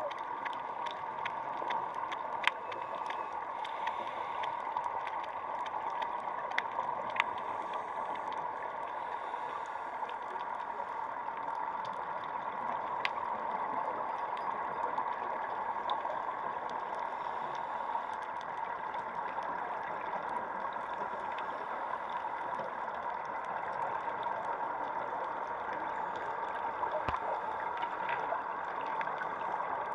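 Steady underwater ambience, a muffled hiss with scattered faint clicks and ticks.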